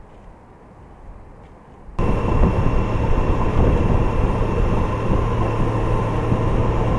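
A faint low rumble, then an abrupt jump about two seconds in to a Honda Gold Wing GL1800 trike under way at road speed. Its flat-six engine and the rush of wind and road noise run loud and steady, with a low steady hum.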